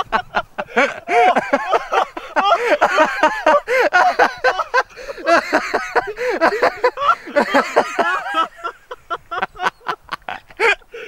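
People laughing hard, in quick high-pitched peals of laughter.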